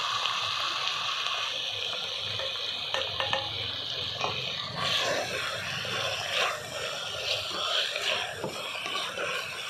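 Marinated chicken pieces sizzling in hot oil in a clay cooking pot, with a spoon stirring and scraping through them in irregular strokes from about halfway in.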